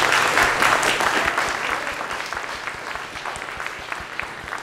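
Audience applauding, loudest at first and thinning out to a few scattered claps near the end.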